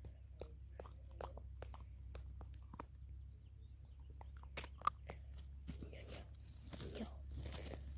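A puppy chewing: faint, irregular crunches and clicks, with a short pause around the middle and one sharper click just before it picks up again.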